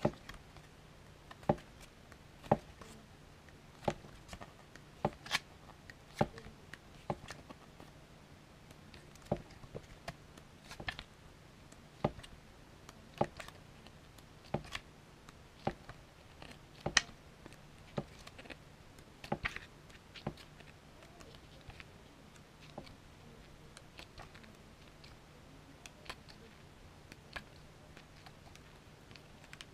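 Pages of a small paperback manga booklet being turned one after another. Each turn is a short, sharp papery flick, coming about once a second, then thinning out in the last third. A faint steady low hum lies underneath.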